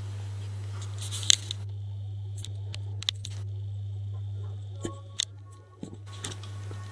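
A few sharp clicks and taps from handling small objects, the loudest a little over a second in, over a steady low hum.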